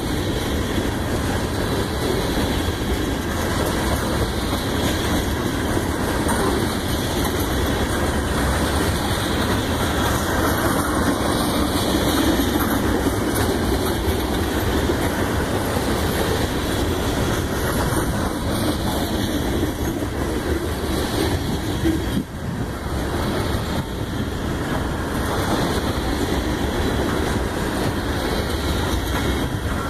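CSX freight train rolling past, a steady rumble and clatter of its cars' wheels on the rails.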